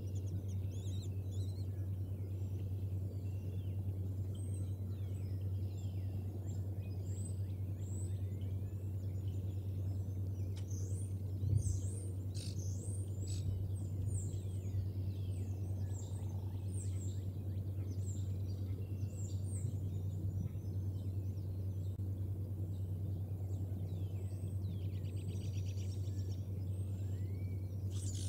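Many small birds chirping and twittering in short, high, sliding calls, with a fast trill near the end, over a steady low hum. A single dull thump comes about a third of the way in.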